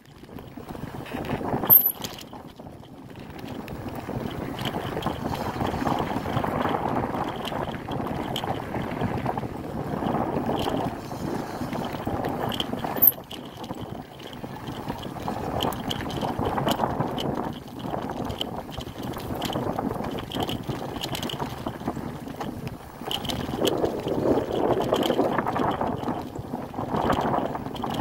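Bicycle riding over a dirt singletrack: tyre noise on the dirt rising and falling, small rattles and clicks from the bike, and a sharper knock about two seconds in and again near the middle, with wind on the microphone.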